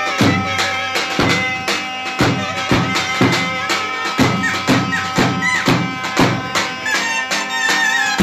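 Clarinet playing a Turkish folk melody with long held notes, over a steady drum beat of about two strokes a second.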